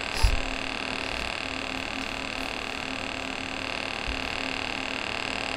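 TIG welding arc on thin-wall mild steel tube, from an Everlast PowerTIG 200DX running in pulse mode: a steady hissing buzz, with a soft knock just after the start.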